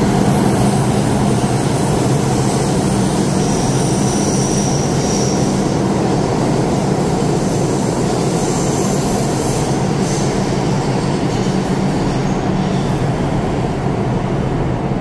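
New York City Subway 6 train pulling out of the station and running past the platform. Its wheels and traction motors make a loud, steady rumble, with brief high wheel squeals a few times, easing off slightly as the train clears the station.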